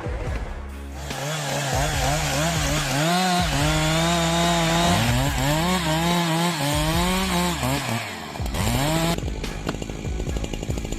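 Chainsaw cutting into a large oak log, its engine note repeatedly dipping under load and rising again as the chain bites and frees up. The steady revving note breaks off about nine seconds in, leaving a rattling run.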